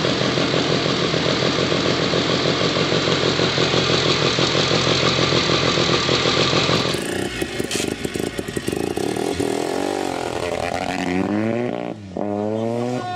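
Hercules W2000's 294 cc Sachs Wankel rotary engine running steadily, recorded close up, with a fast even pulse. About seven seconds in the sound changes to a rotary-engined Hercules 502 GS motocross bike revving several times, its pitch sweeping up and down.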